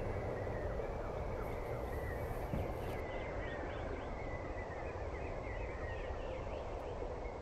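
Faint outdoor ambience: birds chirping over a low, steady rumble.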